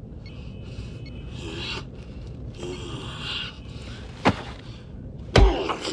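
Grappling: bursts of rasping, hissing strain, then two sharp impacts about a second apart, the second the loudest with a deep thud as a body is thrown down.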